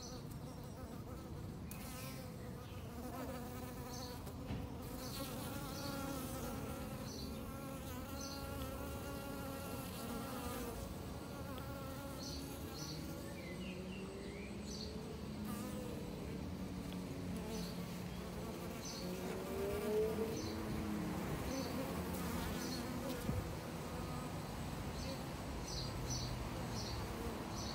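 Honeybees buzzing in flight close by, their hum sliding up and down in pitch as they come and go.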